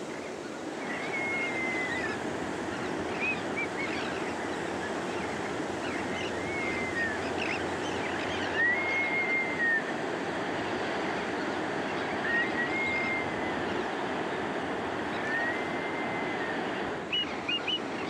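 Ocean surf breaking, a steady rushing wash. Over it, a high whistled call is repeated about five times, roughly every three seconds; each call is held about a second and dips at the end.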